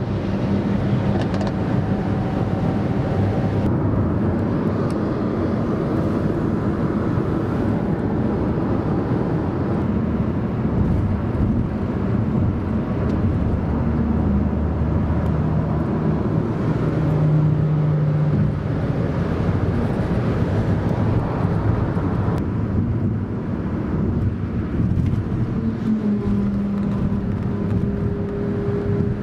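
Continuous motorway road and wind noise heard from a moving car, with Lamborghini supercars driving alongside and passing, their engine notes rising out of the noise at a few points.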